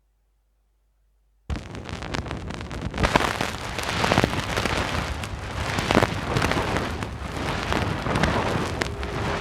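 Crackling, hissing noise thick with pops from a played flexidisc record. It starts abruptly after about a second and a half of silence and swells louder a few times.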